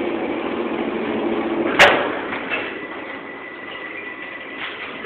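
Elevator doors sliding, with a sharp loud knock just under two seconds in as they shut, then a faint steady high tone over the noise of the car. Heard through a phone's thin, muffled recording.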